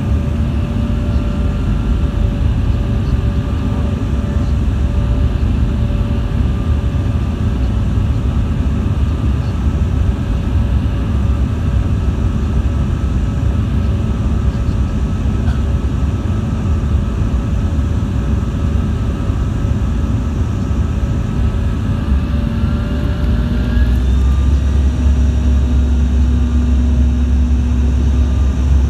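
Airliner cabin noise: the steady low rumble of the aircraft's engines with faint steady whining tones. Near the end a short rising whine comes in and the low rumble grows louder.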